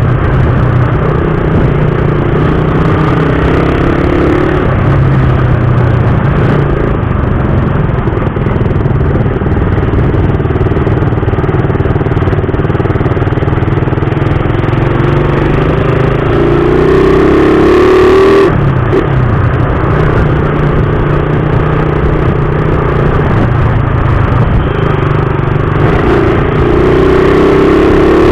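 Suzuki Raider 150 motorcycle engine running while riding, with road noise. The revs climb about two-thirds of the way through, drop suddenly, then climb again near the end.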